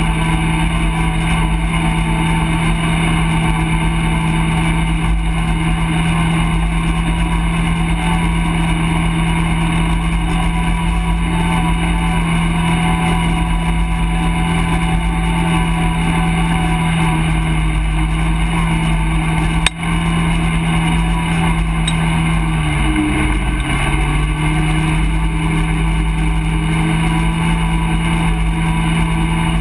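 ATV engine running at a steady, even speed while riding a dirt trail, heard close up. Its pitch dips briefly and comes back about two-thirds of the way through, a moment after a single sharp click.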